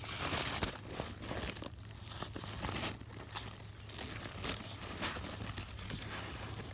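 Grass and squash vines rustling and crinkling as they are pulled aside and snipped with scissors to cut a butternut squash from its vine, with many small clicks and snaps.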